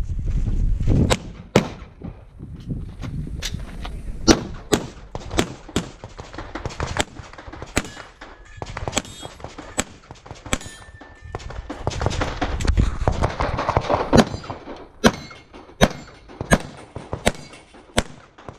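Handgun shots fired in quick pairs and short strings, with brief gaps as the shooter moves between positions. A low rumble rises and falls twice between the shots.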